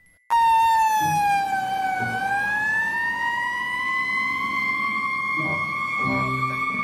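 Electronic fire-truck siren wail. It starts suddenly, dips in pitch, then slowly climbs and holds a steady high note.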